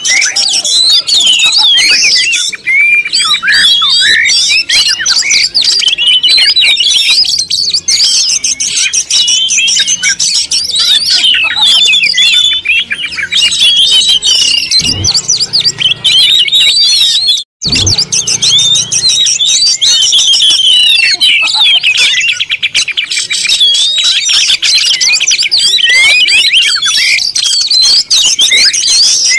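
Dense, continuous chorus of many small birds chirping and twittering over one another, with a brief break about two-thirds of the way through.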